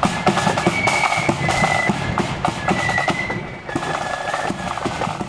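Marching flute band playing a tune: high held flute notes over steady drum beats, growing a little fainter as the band moves away.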